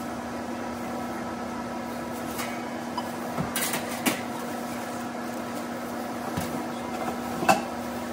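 Steady hum of a running commercial speed oven, with metal clanks as its door is handled and a baking tray is slid out and set down: a few knocks about two to four seconds in and a louder knock near the end.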